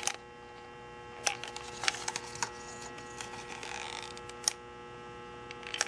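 A few scattered light clicks and taps from handling a plastic cup of epoxy, its stirring stick and a handheld infrared thermometer, over a steady electrical hum.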